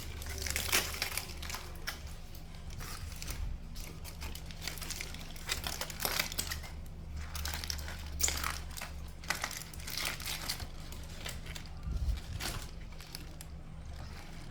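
Charred skin being scraped off fire-roasted food by hand: irregular crinkling and crackling scrapes, over a steady low hum.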